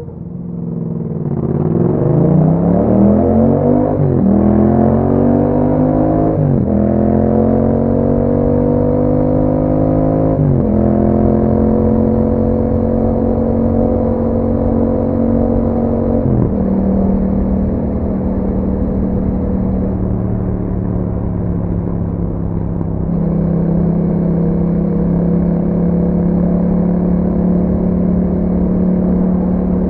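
2021 Yamaha MT-07's 689 cc parallel-twin engine through an Akrapovič exhaust, accelerating through the gears: the engine note climbs, drops sharply at each of four upshifts, and then settles into a steady cruise for the second half.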